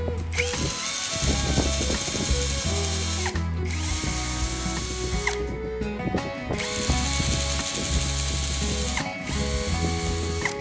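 An electric power tool runs in spells of two to three seconds, stopping briefly in between, over background music.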